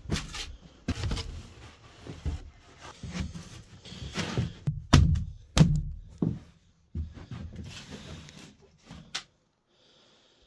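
Irregular knocks, thuds and scrapes of rigid foam insulation boards being handled and pushed into a timber frame. The two loudest thuds come about five and six seconds in, and the handling stops about nine seconds in.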